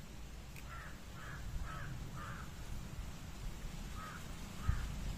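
A crow cawing: four calls about half a second apart, then two more later on. A short low thump comes just before the end.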